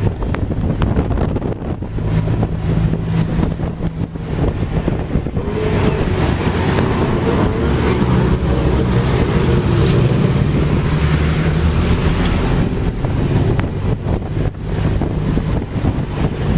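A tuk-tuk's small engine running steadily while it drives through city traffic, heard from inside its open passenger cab, with road and wind noise. The engine's pitch shifts up and down a few times, and the rush of traffic and wind grows louder for several seconds in the middle.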